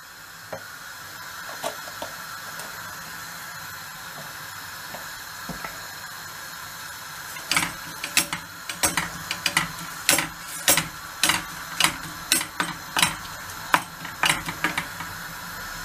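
Grated onion in oil hissing steadily as it starts to fry in a stainless steel frying pan. From about halfway, a wooden spoon stirs the onion, knocking against the pan two or three times a second.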